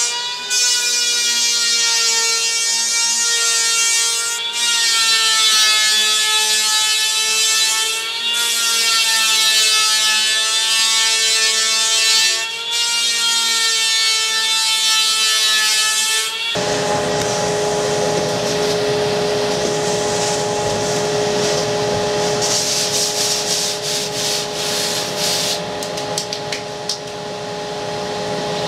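Electric hand planer whining steadily as it skins a polyurethane foam surfboard blank down to thickness, its pitch dipping slightly under load on each pass. About sixteen seconds in it cuts off suddenly, and a steady hum and hiss, like a dust-extraction vacuum, takes over with some crackling.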